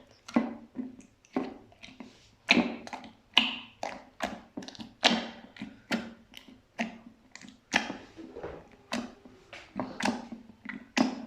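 Slime being pressed by hand: a run of short pops and clicks, about two a second, some louder than others.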